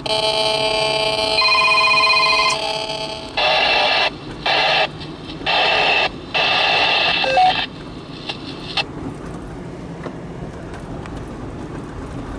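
Amateur two-way radio speaker: a steady electronic tone of several pitches that changes about a second and a half in and stops after about three seconds, then four abrupt bursts of static as transmissions open and cut off, leaving a faint hiss.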